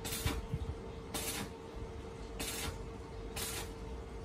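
Rhythmic scraping strokes of a hand tool being worked back and forth, about one stroke a second, over a steady hum.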